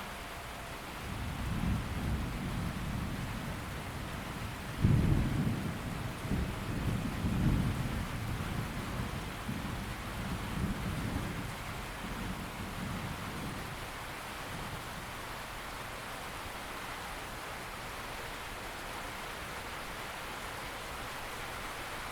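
Steady rain falling, with a roll of thunder: a low rumble builds about a second in, breaks into a sudden loud clap about five seconds in, and rolls on before fading back into the rain a little past the middle.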